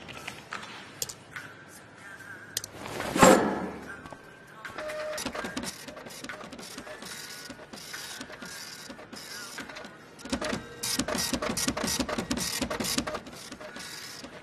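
Computer-lab machine clatter: irregular clicking and rattling from keyboards and a printer, densest from about ten to thirteen seconds in, with one loud thump about three seconds in.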